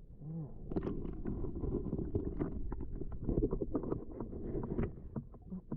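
Muffled water sloshing and splashing in a shallow river, mostly low and dull, with many small knocks and taps throughout.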